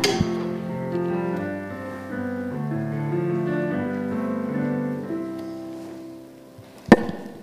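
Closing chords of a hymn played on a keyboard instrument, held and changing a few times, then fading away after about five seconds. A single sharp knock comes near the end.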